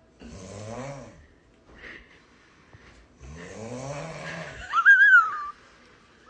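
Snoring: two snoring breaths, the second longer and ending in a loud high whistle that rises and falls.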